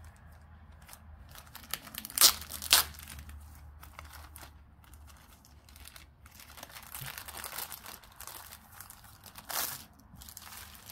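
Clear plastic wrapper crinkling and tearing as a rolled diamond painting kit is opened and slid out of it. There are two sharp crackles about two seconds in, a stretch of rustling later on, and one more crackle near the end.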